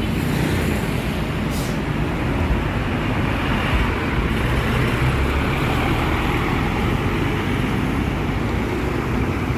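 Steady road traffic noise: engines and tyres of passing vehicles on a busy road, buses among them, with no horn sounding.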